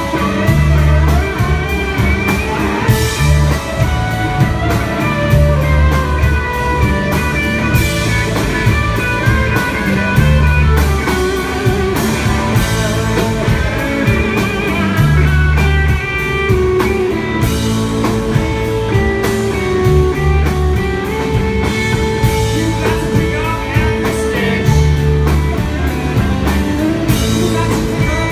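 Live rock band playing loudly: two electric guitars, electric bass and drum kit, with a bass line moving in long notes under droning guitars.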